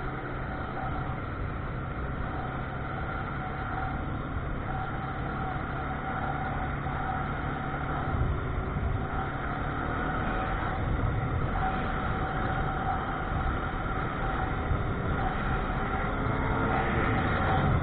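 Vehicle running steadily as it drives slowly, a continuous drone with a faint steady whine, getting a little louder in the second half.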